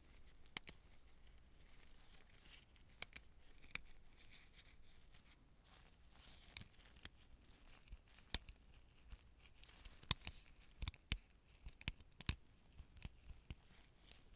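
Close-miked handling sounds of surgical instruments and supplies: irregular sharp clicks with light rustling. The louder clicks come in the second half.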